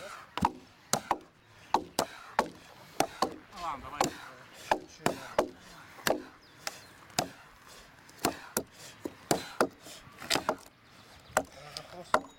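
Sharp knocks and clacks at an irregular pace, roughly two to four a second.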